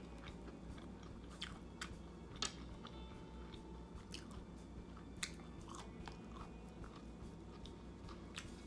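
A person chewing breaded vegan chicken nuggets: scattered small crunches and mouth clicks, a dozen or so spread over the seconds.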